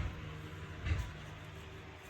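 Two dull knocks about a second apart, over a steady low hum and hiss.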